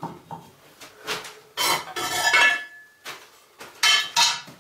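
Fired bricks and a steel plate being handled on a cob bench: scraping, a clattering clink with a brief metallic ring about two seconds in, and two sharp knocks near the end.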